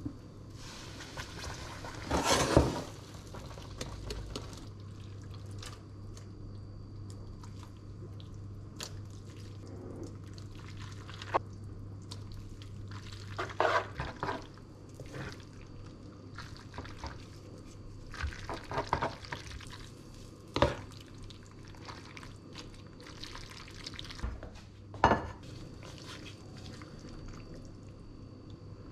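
Fettuccine and pesto being tossed in a nonstick frying pan with tongs: soft stirring with scattered clicks and scrapes of the tongs against the pan, and a louder clatter about two seconds in. A steady low hum runs underneath.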